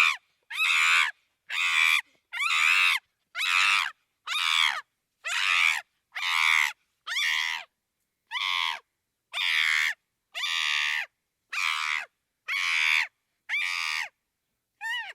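Chimpanzee screaming: a long run of shrill screams, about one a second, each short and separated by a brief silence. The last scream, near the end, is brief and weaker.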